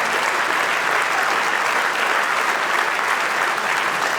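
A large congregation clapping steadily, a dense, even applause.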